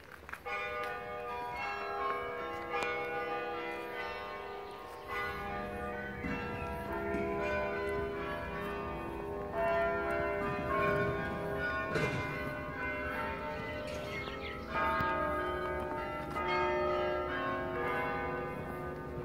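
Church bells ringing a tune, with many struck notes ringing on and overlapping. They start about half a second in.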